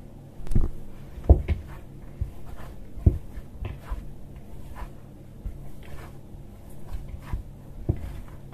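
Hands kneading soft cookie dough in a mixing bowl: irregular soft thumps and squishes as the dough is pressed, folded and turned, the loudest thump about a second in.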